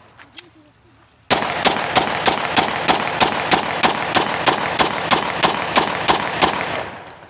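A 30 bore (7.62×25 mm) pistol fired in one rapid string of about twenty shots at roughly four a second, starting about a second in. The noise between shots never dies away, and the firing stops near the end.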